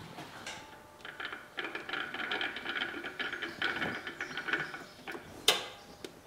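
Portman walkie stacker being maneuvered with a parts washer strapped to its forks: a run of metallic rattling and clicking, then a single sharp clack near the end.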